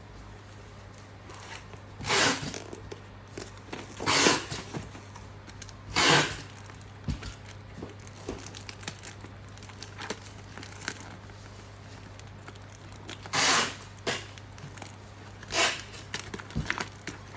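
Parcel packaging being torn open by hand: about five short ripping tears, with crinkling and small rustles in between, over a faint steady low hum.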